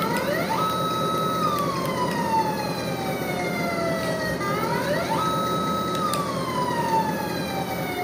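Electronic siren from the sound module of an MN D90 1/16 RC Defender: a slow wail that rises quickly, holds about a second, then slides down over several seconds, twice.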